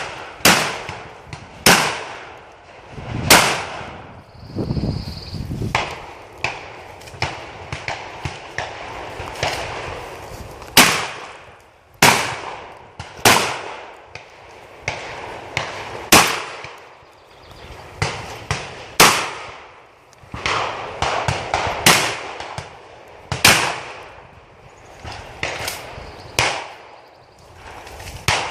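Shotgun fired again and again at irregular intervals, about two dozen loud shots with short echoing tails, some a fraction of a second apart and others a few seconds apart, with fainter sharp knocks between them.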